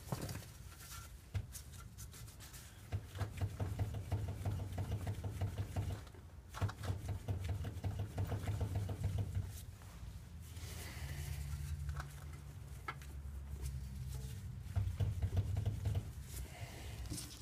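BMW Z3 front wheel hub and brake rotor rocked side to side by hand, giving fast repeated light clicking and rattling in several spells, with glove rubbing on the metal. The sound comes from the lateral play in the driver-side front steering and suspension that the owner is trying to trace.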